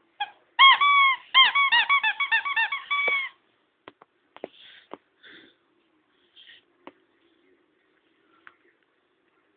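A squeaky plush dog toy squeaked over and over as a small dog chews it: a quick run of high squeaks starting about half a second in and lasting about three seconds, followed by a few soft clicks.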